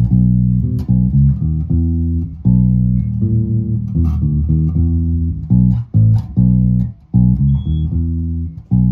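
Electric bass guitar played fingerstyle through an amp: a line of plucked single notes, with short breaks about six and seven seconds in.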